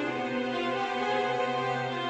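Slow, soft background music with sustained held notes and string-like tones.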